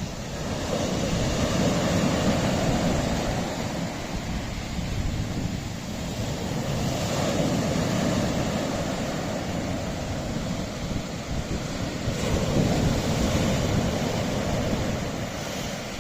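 Sea waves washing against a rocky shore, the surf noise swelling and ebbing three times, about every five to six seconds.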